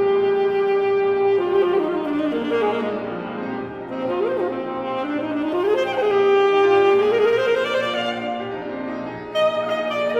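Alto saxophone holding long notes with smooth slides up and down between them, accompanied by piano.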